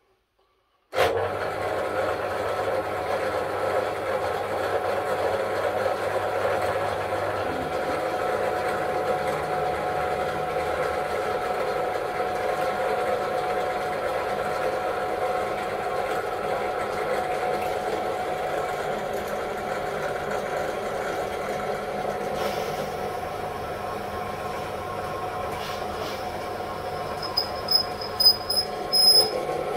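Benchtop drill press motor starting about a second in and then running steadily with an 8 mm bit. Near the end there are a few short, louder, higher-pitched spikes as the bit is fed down into the wooden board.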